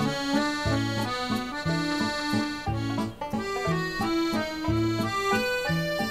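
Background music: a solo accordion tune, the melody running over bass notes that recur about twice a second.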